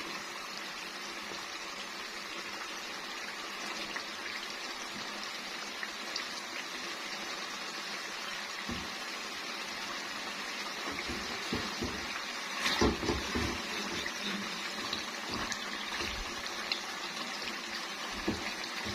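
Chicken and masala frying in oil in a pot: a steady sizzle with small scattered pops, and a brief louder clatter about two-thirds of the way through.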